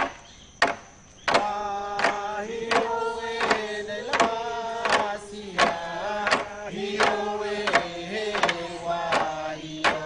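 Several voices chanting together in held, stepping notes over a steady beat of sharp percussive strikes, about one every three-quarters of a second. The chant comes in just over a second in, after a couple of strikes.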